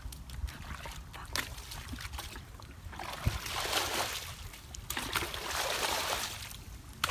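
Water sloshing and splashing as a plastic bucket is dipped and dragged through shallow muddy water. It comes in two swells, one around the middle and one near the end.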